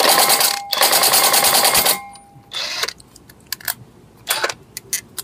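Cordless impact wrench hammering on a car wheel's lug nut in two bursts, about two seconds in all. After that it gives only a short weak burst and a few clicks as its battery runs flat.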